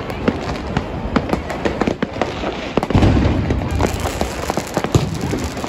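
Fireworks going off in rapid succession: a dense stream of sharp cracks and pops, with a louder low thump about three seconds in and a strong single bang near the end.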